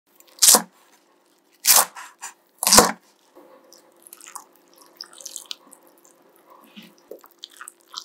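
Three knife chops through leafy nanohana greens onto a wooden cutting board, about a second apart. Then quieter splashing and trickling of water poured into a bowl of chopped vegetables.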